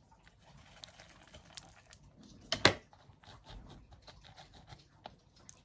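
Faint crackling and rustling of potting soil as fingers press monkey tail cactus stems into a plastic bowl, with one sharp click a little past halfway.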